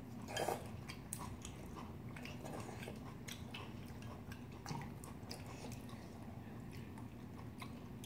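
Quiet eating sounds: chewing, with light, scattered clicks of chopsticks and a spoon against stainless-steel bowls.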